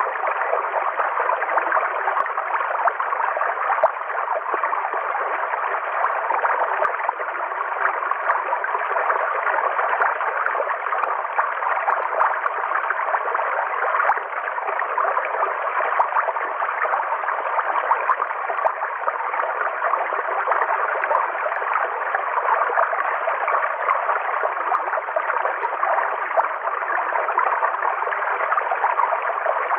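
River water flowing, a steady, unbroken rush of water.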